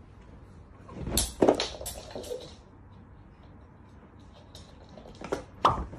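A door being moved, with sudden knocks and scrapes: a cluster about a second in and another near the end.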